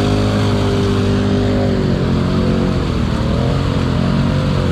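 ATV engine running steadily, its pitch sagging about two seconds in and then climbing back up.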